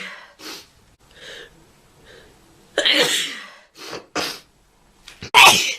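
A woman sneezing in a fit: a few faint build-up breaths, then a loud sneeze about three seconds in, two quick short sneezes around four seconds, and another loud sneeze near the end.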